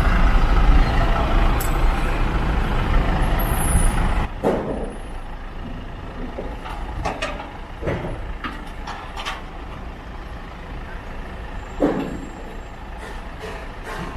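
Tow truck's engine running loud for about four seconds, then falling back, with a few sharp knocks and short hisses scattered through the rest.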